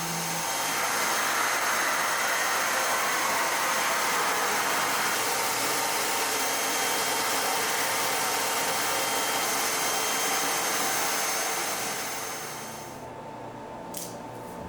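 Steady rushing, hissing machine noise, like blowing air, with faint steady whines on top; it fades out about twelve seconds in.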